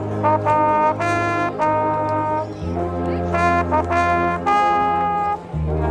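Marching band brass section playing: trumpets and trombones over sustained bass notes. The bass chord changes twice, and short repeated notes alternate with held ones in the upper parts.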